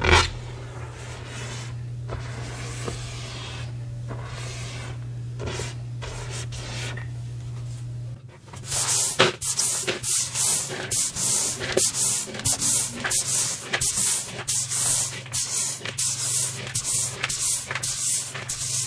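Pink gym chalk worked by hand: a sharp crunch right at the start, then a soft steady hiss of fingers pressing into loose powder over a low hum. About eight seconds in, this gives way to quick scratchy swishes, about two a second, as the hand sweeps chalk powder across a granite counter.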